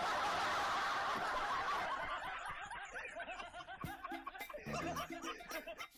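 Laughter from many people right after a punchline, loudest at the start and thinning out over the next few seconds. Light percussive music comes in about four seconds in.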